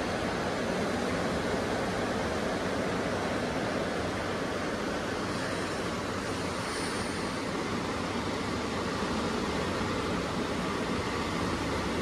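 Steady wind and ocean surf, a continuous rushing noise, with wind rumbling on the phone's microphone.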